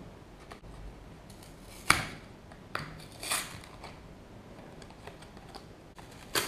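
Cardboard takeout box being torn apart by hand: a few short rips and crinkles, the sharpest about two seconds in and another right at the end.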